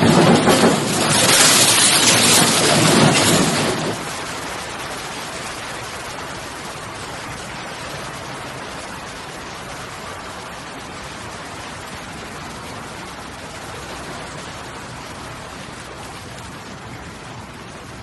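Typhoon wind and driving rain, a loud roar for the first four seconds, then dropping to a steadier, quieter rush of noise.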